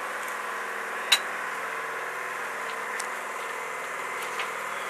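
A standing historic locomotive's machinery running with a steady, even hum, broken by one sharp metallic click about a second in and a couple of fainter ticks later.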